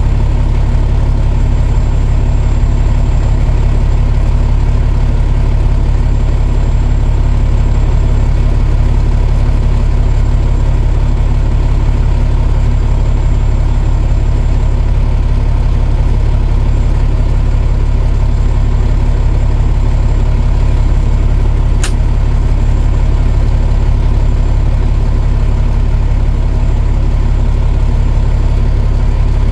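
Semi-truck's diesel engine idling steadily, heard from inside the cab. A single sharp click comes about two-thirds of the way through.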